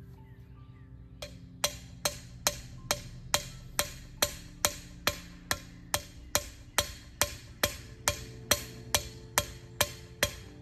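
Hammer pounding a trellis ground anchor into the soil: sharp, ringing strikes about two a second, starting about a second in and keeping a steady rhythm.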